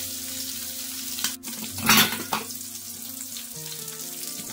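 Chicken pieces sizzling as they shallow-fry in oil in a frying pan, with a short, louder burst of noise about two seconds in.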